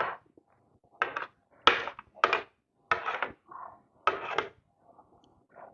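Close-miked eating sounds from a mukbang of spicy soup noodles and chicken feet: about eight short slurps and chews at irregular intervals, roughly one every half second to second.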